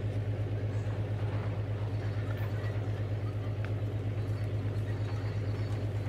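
Mixed excavator engine sound effect played back by the animated HO scale model backhoe's sound module: a steady, low, rapidly pulsing engine beat.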